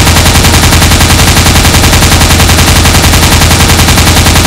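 Automatic-gunfire sound effect dubbed over toy blasters: a steady, rapid machine-gun burst of evenly spaced shots, very loud.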